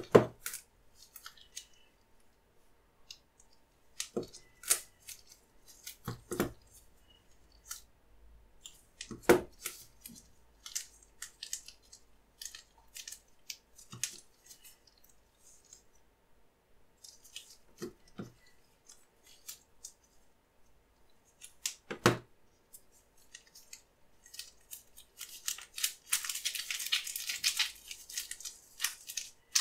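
Sticks of modelling clay (plastilina) knocked and set down on a paper-covered tabletop, with scattered crisp clicks and rustles of nitrile gloves and a few sharper knocks. Near the end, a dense crackly rustling as the clay is kneaded in gloved hands.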